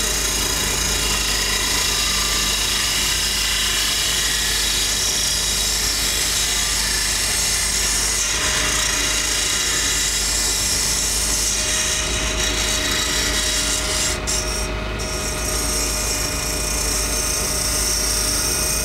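Lathe running steadily while a hand-held drill bit scrapes inside the mouthpiece bore of a spinning acrylic duck call, opening it up: a steady high hiss of cutting over the motor's hum. The cutting lets up briefly about fourteen seconds in.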